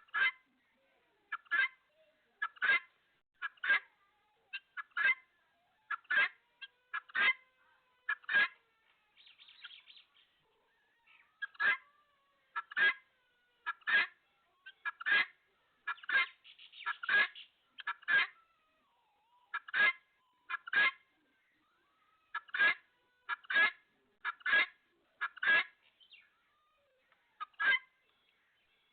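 Domestic poultry calling: short, sharp honking calls repeated about once a second, some in quick pairs, with a couple of brief scratchy flurries in between.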